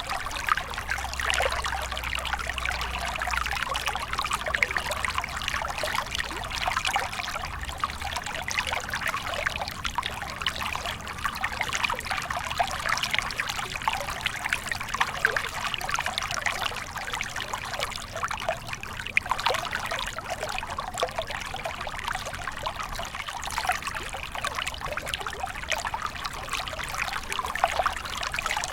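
Small stream trickling and splashing over stones, a steady babbling of water with no pauses.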